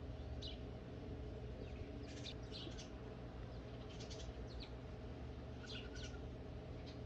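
Small birds chirping in short clusters of quick, high notes, a few times, over a steady low hum.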